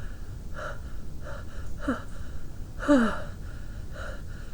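A person's quick, gasping breaths as a sneeze builds, while the sneeze is held back. Two voiced "ah" gasps fall steeply in pitch, the louder and sharper one about three seconds in.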